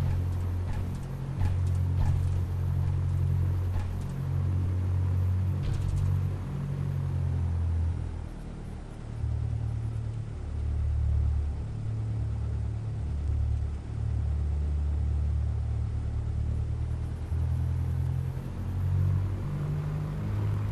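Britten-Norman BN-2A Islander's twin piston engines running as a steady low drone that wavers in loudness, with a few faint clicks in the first several seconds.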